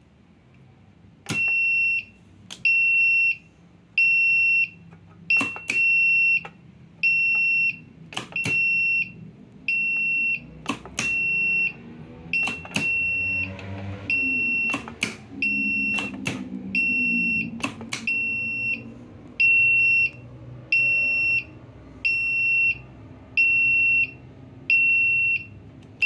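Electronic buzzer on a goods-lift control panel beeping in a steady on-off pattern, about one high beep every second and a half, while the lift is signalled as travelling, with occasional sharp clicks.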